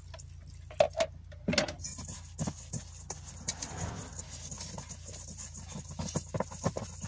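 Hand mixing and squishing wet seeded bread dough in a stainless steel bowl: irregular squelches and small taps against the bowl's metal side, with a couple of sharper knocks about a second in.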